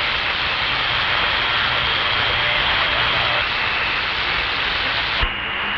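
Steady vehicle cab noise with CB radio hiss, which cuts off with a sharp click near the end as the open channel closes.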